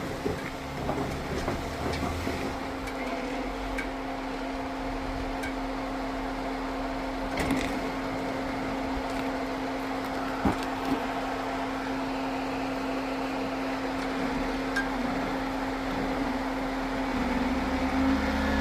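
An off-road vehicle's engine running steadily at low revs while crawling a rock obstacle, with a few brief knocks.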